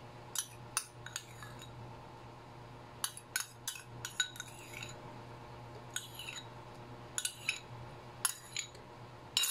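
Metal spoon scraping and clinking against glass as tomato sauce is scraped out of a small glass bowl: light clinks in small clusters every second or two.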